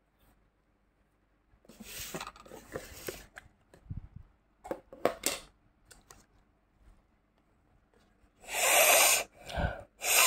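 Two long, loud sniffs close to the microphone near the end: a person inhaling deeply over a tub of crushed mothball powder. Before them come light clicks and rustles of plastic tubs and lids being handled.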